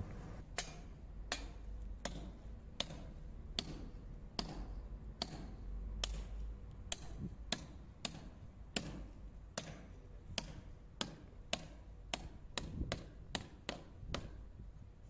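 Hand hammer striking metal anchors to drive them into drilled holes in a wall, with about two dozen sharp strikes a little over one a second, coming quicker near the end.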